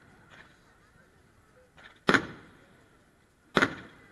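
Two aerial firework shells bursting about a second and a half apart, each a sharp bang that trails off quickly, with a fainter pop just before the first.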